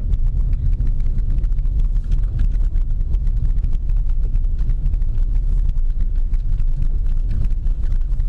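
Volkswagen Polo driving over a cobblestone road: a steady low tyre rumble with many small, rapid clicks.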